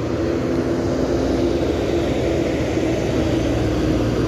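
Intercity coach's diesel engine running steadily as the bus pulls away past close by, a continuous engine drone.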